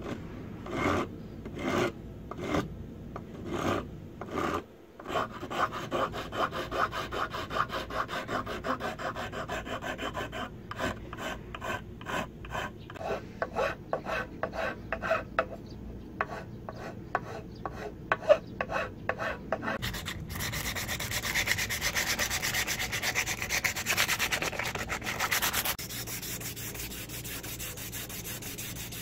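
Steel hand rasp filing the wooden scales of an axe handle in repeated back-and-forth strokes, slow at first and then quick. From about two-thirds of the way in, a steadier rubbing follows, as sandpaper is worked over the wood.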